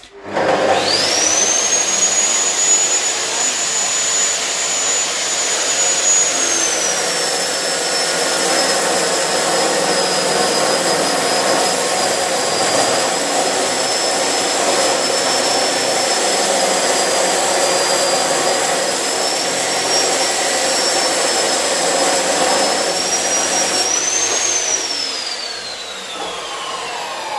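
Electric metal cut-off saw starting up, its motor whine rising quickly to full speed, then dropping in pitch as the blade is pushed into the clamped metal piece, and holding there through a long grinding cut. Near the end the pitch rises briefly as the blade breaks through, then the trigger is let go and the whine slides steadily down as the blade spins down.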